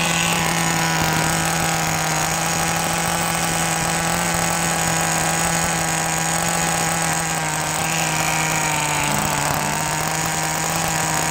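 Small nitro (glow-fuel) two-stroke engine of an FW06 RC car idling steadily while its carburettor idle is being adjusted with a screwdriver. The engine is freshly started and not yet broken in.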